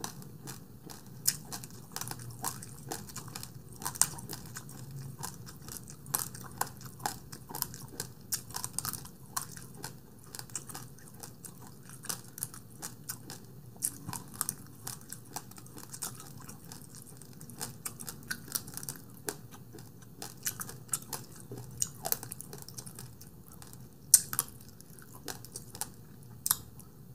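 A person chewing a mouthful of basmati rice with sweetened condensed milk close to the microphone, with many short mouth clicks throughout.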